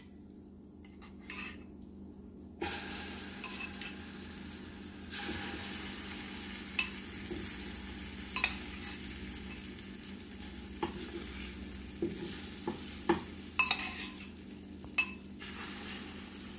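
Spoonfuls of egg-and-nopal batter sizzling as they go into hot oil in a frying pan. The sizzle starts a couple of seconds in and grows as more batter goes in, with short clinks of a metal spoon now and then.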